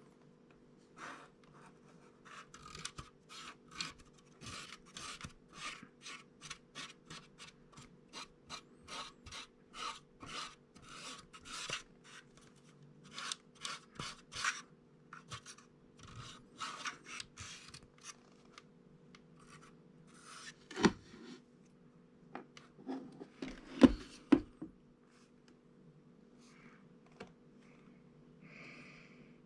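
Scratchy brushing or scraping strokes, about two a second, rubbing dust off a hair dryer's filter mesh. They stop, and after a pause come a few sharp knocks, the loudest sounds here.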